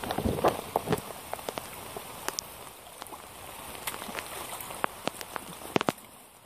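Steady rain hiss with the splashes and squelches of yellow Hunter rubber wellington boots stepping through a puddle and wet grass. The splashes come thickly in the first second, then more sparsely.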